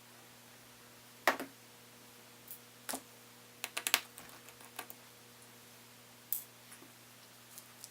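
Scattered small clicks and taps of hand tools and small laptop parts being handled while a MacBook Pro is taken apart, the sharpest about a second in and a quick cluster of clicks near four seconds in.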